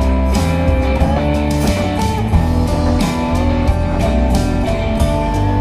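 Background music: guitar-led instrumental track with a steady bass line.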